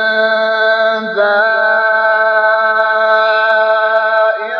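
A male Quran reciter holding one long, drawn-out melodic note in mujawwad-style tilawa. The pitch steps up about a second in, holds steady, then bends down near the end.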